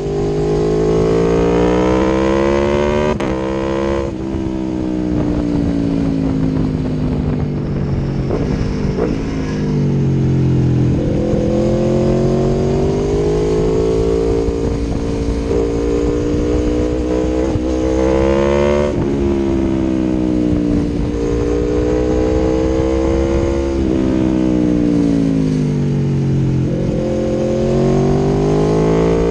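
Aprilia Tuono V4 1100 Factory's V4 engine through an Akrapovic exhaust, under way. The engine note climbs over the first few seconds and drops sharply about four seconds in. It then holds, rises and falls several more times, with another sharp drop about two-thirds of the way through.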